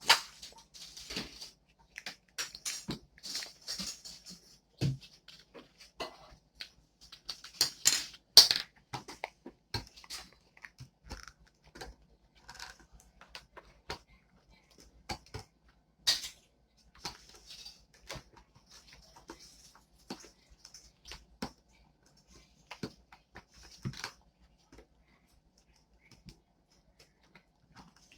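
Glue slime being stirred and squished: irregular sticky clicks, crackles and pops, loudest about eight seconds in and thinning out near the end.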